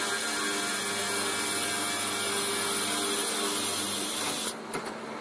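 Automatic metal-cutting circular saw machine running: a steady hiss and hum with a few faint steady tones underneath, which quietens briefly about four and a half seconds in.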